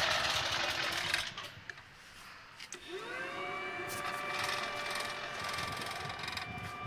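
A Predator generator's engine dies away after being shut off. About three seconds in, an electric blower on the wood gasifier whines up to speed and keeps running steadily, venting gas out of the flare pipe.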